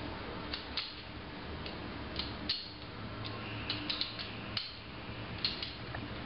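A pin spanner clicking against the nut of a KZRacefurler head swivel as the nut is turned down onto the swivel body: a scatter of small, light metallic clicks, irregularly spaced, over a faint low hum.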